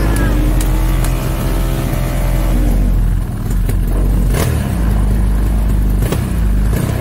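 Tuned 200cc automatic scooter engine running loudly. It is revved up and back down over the first few seconds, then runs steadily with three short sharp cracks in the second half.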